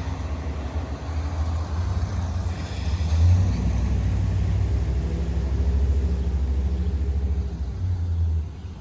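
Heavy fire truck's diesel engine rumbling steadily, a little louder from about three seconds in, then dropping away near the end.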